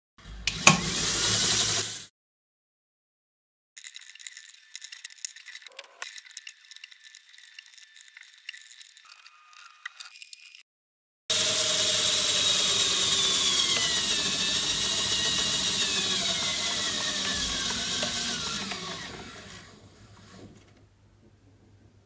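Small DC motor driving a 3D-printed PLA herringbone gearbox, its gears whirring and rattling. A short loud burst comes first, then a stretch of quieter clicking and rattling. From about halfway in comes a long loud run whose whine falls steadily in pitch, fading out near the end.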